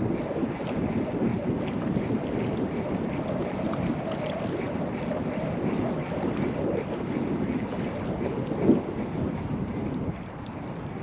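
Wind buffeting the microphone, a steady low rumble, with a brief louder gust about nine seconds in.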